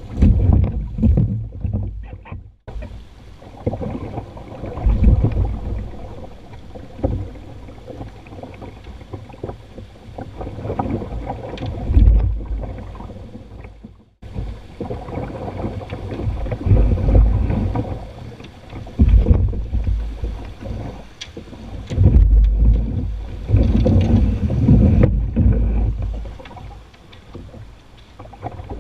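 Water rushing over a shallow, rocky riffle around a poled canoe, with wind buffeting the microphone in irregular low rumbles. It drops out briefly twice.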